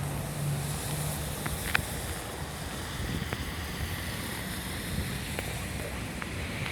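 Low, steady rumble of an approaching train's diesel locomotive under wind noise on the microphone, with a few faint clicks; no horn sounds.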